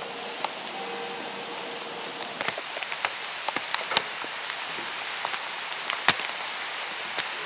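Steady rain: a constant hiss with many irregular sharp taps of single drops landing close by.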